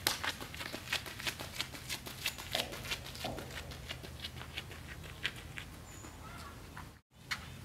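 Running footsteps striking the ground about three times a second, fading out after about four seconds, with faint bird chirps. The sound cuts out for a moment near the end.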